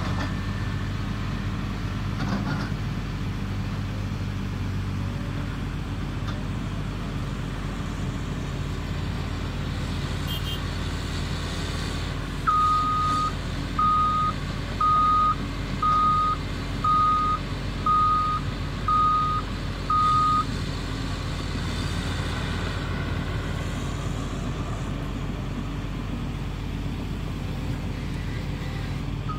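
Caterpillar 330 hydraulic excavator's diesel engine running steadily during warm-up. In the middle, a machine warning alarm sounds eight short beeps at one pitch, about one a second.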